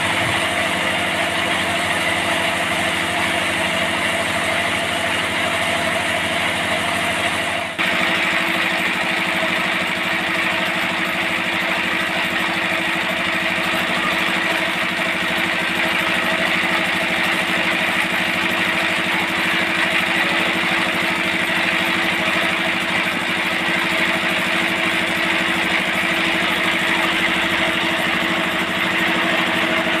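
Forklift engine running steadily at an even speed, with a brief break in the sound about eight seconds in.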